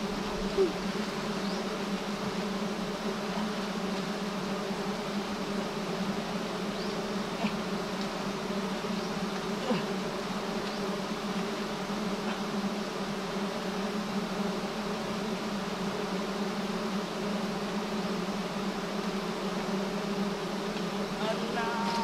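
A swarm of giant honey bees buzzing in a steady, unbroken drone.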